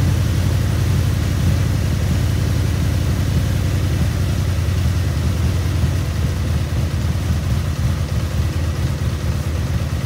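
Honda VF750 Magna's V4 engine idling rough, as it does with clogged idle circuits on the left-bank carburettors. From about halfway the idle turns more uneven and sags as a right-bank carburettor's mixture screw is turned all the way in, dropping the idle and leaving that cylinder nearly dead.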